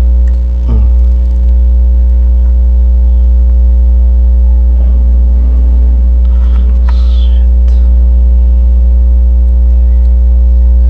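Loud, steady electrical hum with a buzzing stack of overtones, unchanging throughout. Faint clicks and scrapes of small parts being handled show about six to seven seconds in.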